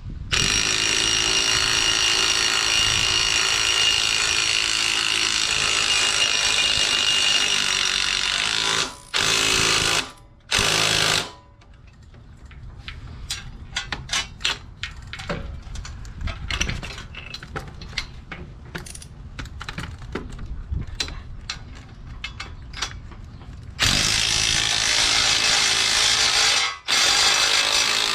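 Handheld power tool running in long steady stretches, for about nine seconds at the start and again for the last four, with two short bursts around ten seconds in. Between them come irregular clicks and knocks of hand work on metal parts.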